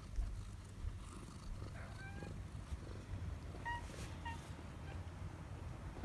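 Domestic cat purring steadily close to the microphone, with a few brief high chirps about two seconds in and again near the middle.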